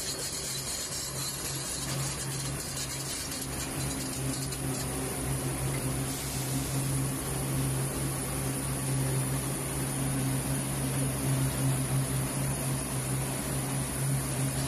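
AHT6000S slipform concrete paver running at work: a steady machine drone with a strong low hum, growing slightly louder toward the end.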